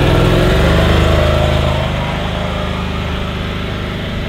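Can-Am side-by-side's engine running as the machine pulls away, a steady drone that fades gradually as it drives off.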